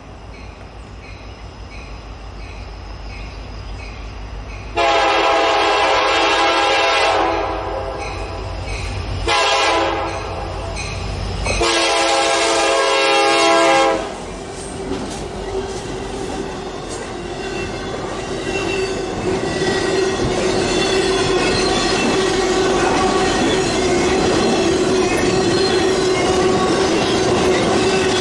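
Diesel freight locomotives approaching with a rising rumble and sounding their horn three times, long, short, long, the last blast ending as they pass. Then the freight cars roll past with a steady rumble and clatter and a held wheel squeal.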